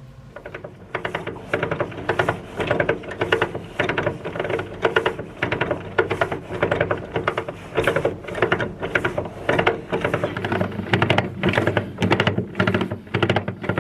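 Sailboat winch being cranked with a winch handle, its ratchet pawls clicking in quick repeated rattling bursts as the handle turns.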